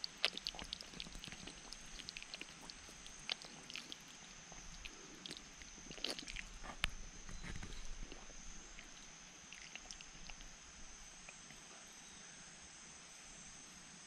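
Soft mouth and swallowing sounds with scattered small clicks as a man drinks water running from a cut water vine held over his mouth. A steady high-pitched insect drone continues underneath.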